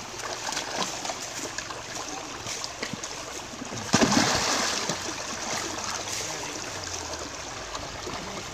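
Shallow stream running and trickling over rocks, with a loud splash about four seconds in.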